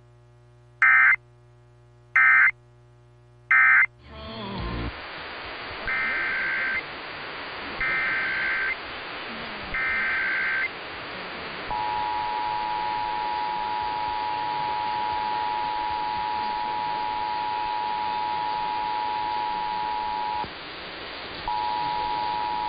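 Emergency Alert System tones: three short, loud SAME end-of-message data bursts, then, over radio hiss, three longer SAME header data bursts of screeching digital tone. These are followed by the steady two-tone EAS attention signal, held about nine seconds, which breaks off briefly and resumes near the end.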